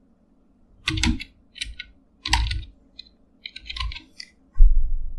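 Computer keyboard being typed on: short clusters of keystrokes, then a louder, deeper thump near the end.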